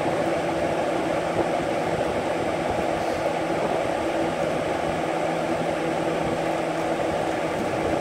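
A 2004–2005 Lasco Galaxy 4733 box fan running steadily: an even rush of air from the spinning blades with a low, steady motor hum.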